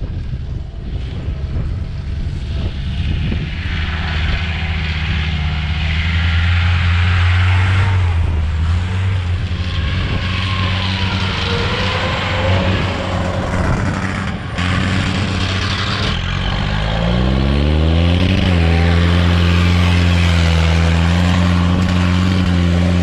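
Off-road jeep's engine running under way, with a rushing noise from the moving vehicle over it. About three quarters of the way through the revs climb, then hold steady at a higher pitch.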